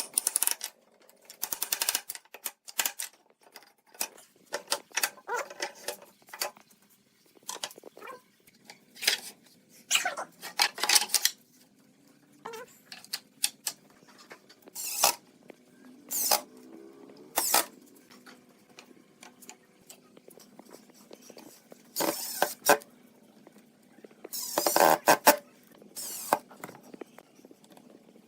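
Workshop handling sounds: intermittent scraping and rubbing of wood and tools, in short irregular strokes with quiet gaps between.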